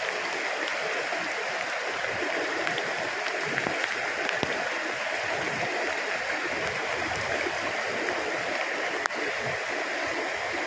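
Steady rush of a shallow, rocky river flowing over stones, an even hiss of water that does not change.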